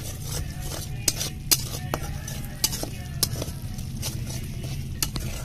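Steel spoon stirring a thick masala paste frying in a metal kadai, with irregular sharp clinks as the spoon strikes the pan, over a steady sizzle.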